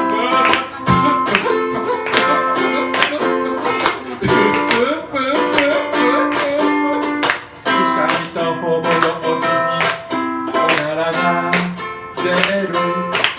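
Ukulele strummed in a steady rhythm, about three strokes a second, playing chords through an instrumental break between sung lines.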